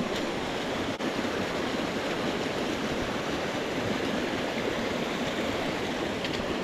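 Steady rushing of a mountain stream, an even wash of water noise.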